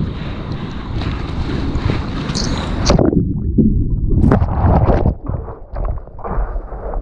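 Wind and rushing water on a surfboard-mounted camera's microphone, then about three seconds in the board goes under a breaking wave: the sound turns suddenly muffled and sloshing underwater, followed by splashing and churning whitewater as it comes back up.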